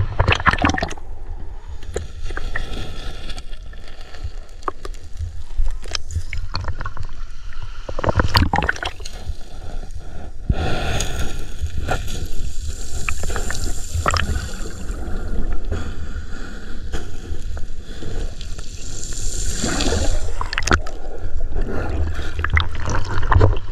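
Seawater splashing and gurgling close to the microphone, with scattered sharp splashes over a steady low rumble.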